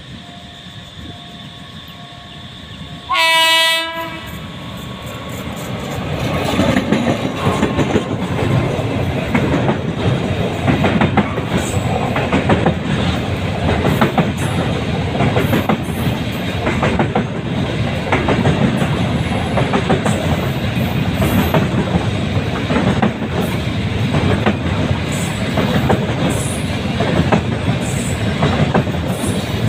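Diesel-hauled container freight train: the locomotive gives one short horn blast about three seconds in. The train then passes close by, with a steady rumble and clickety-clack of wagon wheels over the rail joints as the container flat wagons roll past.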